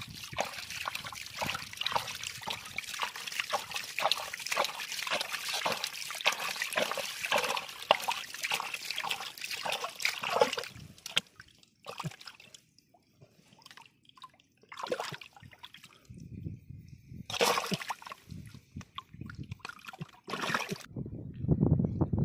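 Water splashing and trickling, busy and continuous for about ten seconds, then a few separate splashes with short quiet gaps.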